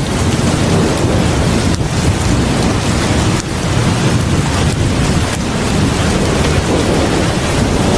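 Heavy rain pouring down in a steady, dense hiss with a deep rumbling low end.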